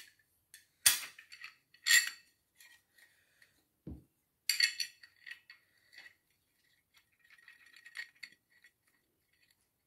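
Glass pot lid with a metal rim being handled while its knob is screwed on from underneath: a few sharp clinks that ring briefly, a dull knock just before four seconds, then faint small ticks and rattles as the screw is tightened.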